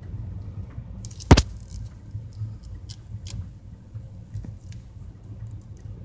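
Low rumble of a vehicle creeping slowly along a road, with one sharp knock about a second and a half in and scattered faint high clicks.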